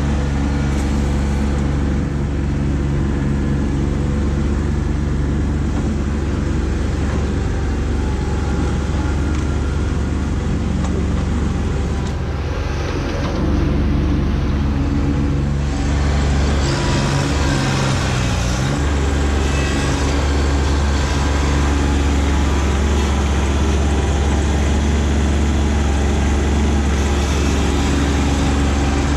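Kubota B2601 compact tractor's three-cylinder diesel engine running steadily while the tractor drives and works dirt with its front loader. The engine's pitch dips and recovers briefly about two-thirds of the way through.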